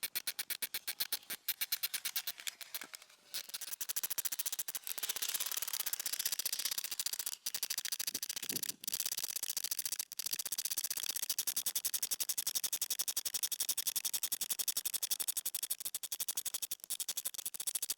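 Socket ratchet clicking rapidly as the 15 mm top bolt of a rear strut is backed out, with brief pauses about three seconds in and a few times after.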